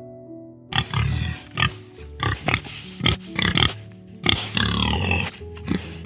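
An animal making a rapid series of short, loud grunts and squeals, some falling in pitch, starting about a second in, over steady background music.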